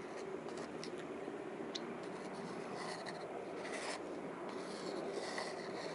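Light scratching and rubbing of a small glue bottle's nozzle and fingers on a wooden block around a bolt, a few brief scrapes that are strongest about three to four seconds in, over a steady low background hum.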